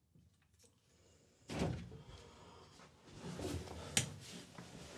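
Near silence, then a dull thump about a second and a half in as a person sits down at a table. Rustling and handling noises follow, with one sharp click near the end.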